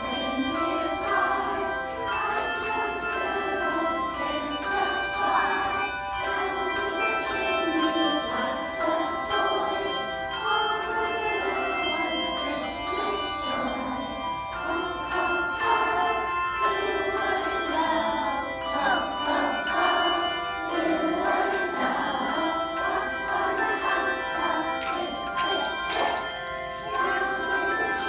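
Handbell choir playing a tune: many tuned handbells struck one after another, their notes ringing on and overlapping.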